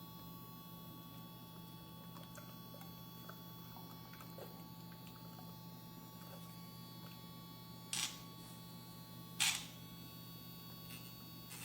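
Small electric pet nail grinder motor running with a steady hum. About 8 seconds in, two brief louder noisy bursts come a second and a half apart.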